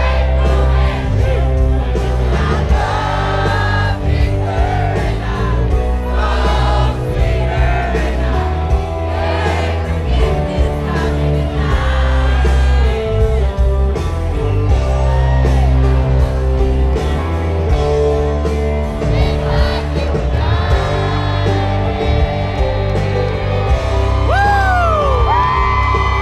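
A live country band with a male lead singer, heard from the audience through a large concert PA, with heavy bass and crowd noise underneath.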